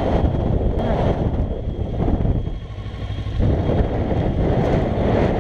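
Kawasaki ER-6n's parallel-twin engine running under way, mixed with wind noise on the bike-mounted camera. The sound drops for about a second a little past the middle, then picks up again.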